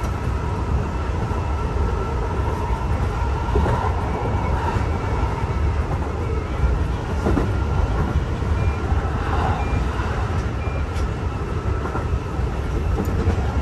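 Kintetsu electric train running along the track, heard from inside the front car: a steady low rumble of wheels and motors with a constant haze of running noise over it.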